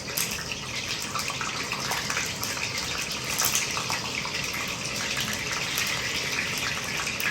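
Boiled eggs frying in hot oil, a steady sizzle with scattered spitting pops.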